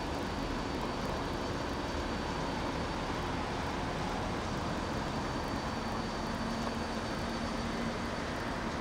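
Steady drone of AKN diesel railcars: the engine of a railcar standing close by runs while another approaches slowly. A low, steady hum note joins about six seconds in.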